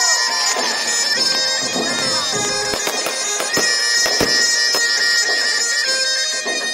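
Fireworks banging and crackling in sharp repeated reports, over bagpipe music with steady sustained notes.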